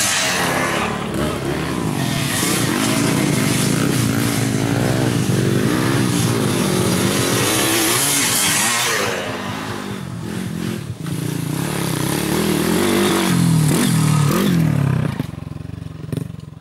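Trail motorcycle engine revving up and down as the bike rides over the dirt track's humps, easing off for a couple of seconds midway, revving hard again, then dying away near the end.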